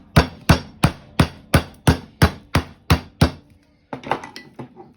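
Chicken breasts being pounded flat on a cutting board: about a dozen hard, even strikes, roughly three a second, then a few lighter knocks near the end.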